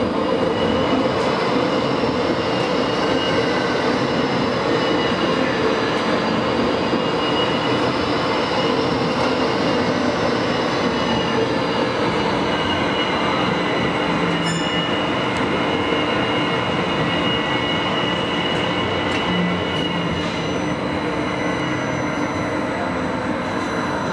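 Tram running on rails through a concrete tunnel: a steady rolling noise of steel wheels on track with high, steady whining tones over it. It gets slightly quieter near the end as the tram nears a platform.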